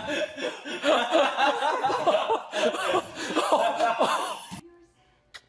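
People laughing hard, cut off abruptly about four and a half seconds in.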